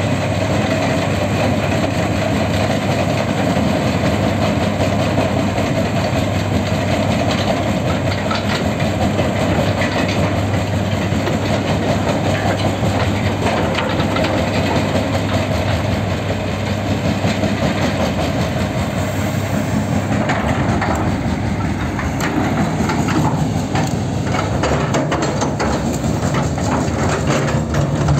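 Mobile crusher and excavator running steadily with a heavy low hum, as concrete and rubble clatter into the hopper and are crushed. The knocking of breaking and falling rubble grows denser in the last third.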